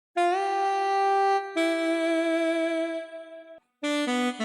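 Electronic wind instrument with a saxophone voice, playing a slow melodic phrase. The first note scoops up slightly into pitch and is held, then a lower note is held for about two seconds and fades. Near the end comes a quick run of short notes stepping down.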